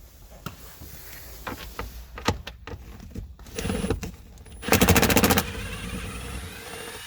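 A tool with a 10 mm socket working the backrest bolts: scattered clicks and knocks, then about five seconds in a fast rattling run of clicks lasting under a second, the loudest sound.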